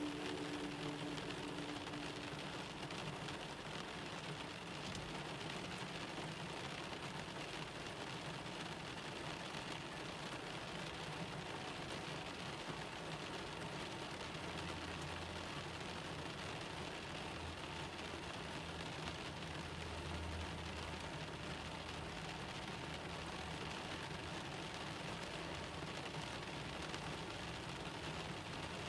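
Rain falling steadily on a car, an even patter of drops on the body and glass, with a low steady hum underneath.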